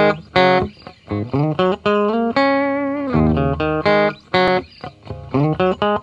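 Guitar music: a melody of separate plucked single notes, with one longer held note a little past the middle.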